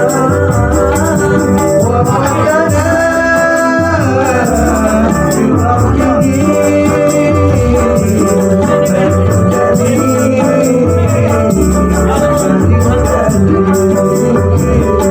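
Modern hadrah music playing: hand-drum percussion with a shaker-like rattle keeping a steady beat under a melodic lead line.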